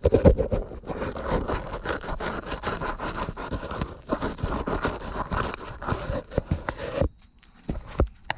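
Sandpaper rubbed rapidly back and forth over a furnace flame sensor rod, scraping off the buildup that had given a very low flame-sensor reading. The scraping stops about seven seconds in, followed by a couple of short knocks.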